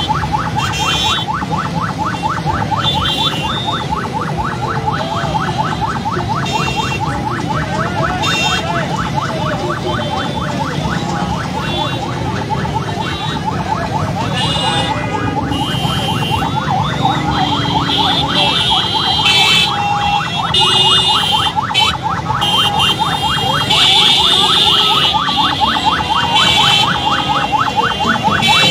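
Loud, congested street traffic: running engines and motorbikes under car horns that sound off and on, louder in the second half, with a fast pulsing tone throughout.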